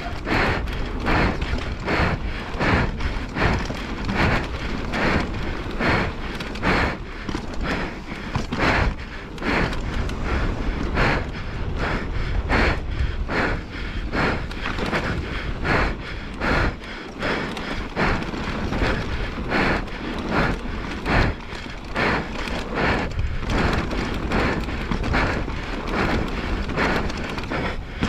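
Downhill mountain bike running a rough dirt-and-rock trail at race speed: a steady rush of wind on the microphone under rapid, irregular knocks and rattles from the bike over bumps, with tyres on loose dirt and gravel.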